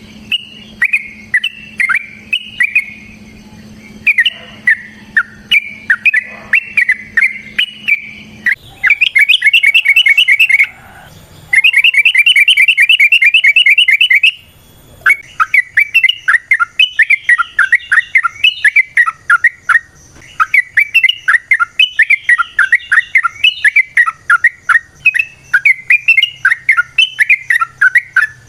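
Yellow-vented bulbul singing. Bubbly chattering phrases are broken by two runs of fast, evenly repeated notes lasting a few seconds each, about a third of the way in, and then give way to continuous warbling chatter.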